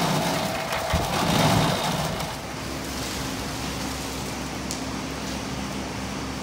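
Small electric concrete mixer running, its drum turning as wet concrete tips out into a wheelbarrow. About two and a half seconds in, the sound drops to a quieter steady hum.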